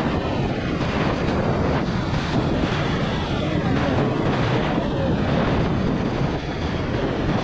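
Steady wind rush on a helmet-mounted camera's microphone while riding a motorcycle at road speed, with the bike's engine and tyre noise underneath.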